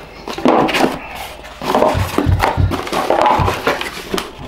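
Cardboard packaging being handled: stiff card inserts and an inner lid sliding and being lifted out of a box, with scraping, rustling and a few dull knocks.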